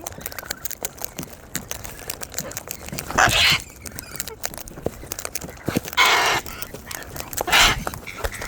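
Three harsh, screeching cockatoo calls, about three, six and seven and a half seconds in, over many small clicks and taps.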